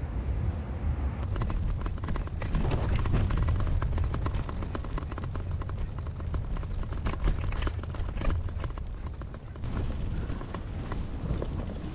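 Wind rumbling on the microphone while riding a Brompton folding bike, with a quick run of clicks and rattles from the bike over the path between about a second in and near the end.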